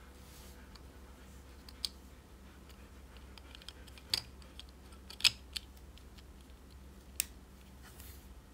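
A few sharp, separate small clicks and taps of hard objects being handled, about five in all, the loudest a little over five seconds in, over a low steady hum.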